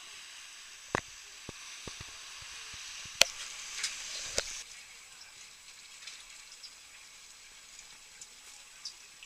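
Fizzing hiss of water, like wave foam or wash, growing slightly louder and then cutting off abruptly about four and a half seconds in, with a few sharp clicks along the way.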